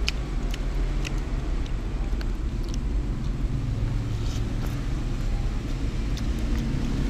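Steady low rumble, with scattered short sharp clicks and crunches of eating from a bowl of vegetables.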